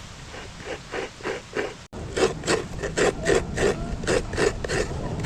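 Rhythmic scraping or rubbing strokes, about three to four a second, growing louder after an abrupt cut about two seconds in.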